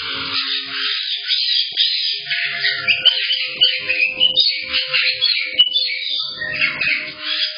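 A room of caique parrots calling: loud, continuous high-pitched squawks, chirps and whistles from several birds at once, with a few sharper calls.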